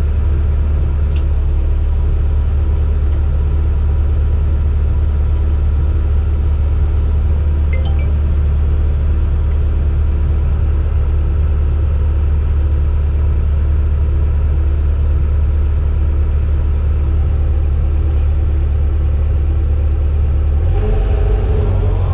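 Heavy-equipment diesel engine running steadily with a deep, even drone. The low note shifts slightly near the end.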